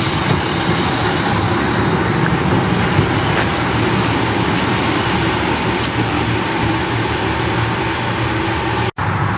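Diesel trains running at a station platform, mainly a Class 143 Pacer railcar idling: a steady low engine hum.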